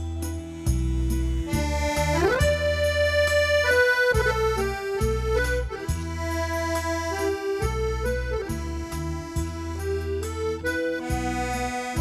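Instrumental introduction of a Thai luk thung song played live by a band: an accordion-toned melody line of held notes over deep sustained bass, with a quick upward pitch slide about two seconds in.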